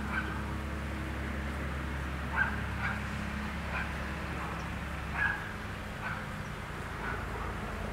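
A dog barking in the distance, about seven short barks at irregular intervals, over a low steady hum.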